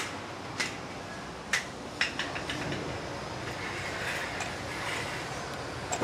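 Steady workshop background noise with a few sharp knocks and clicks in the first three seconds.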